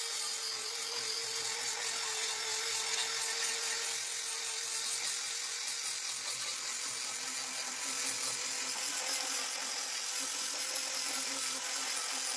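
Corded electric angle grinder running steadily at full speed with a constant whine and hiss as it works over a wooden board.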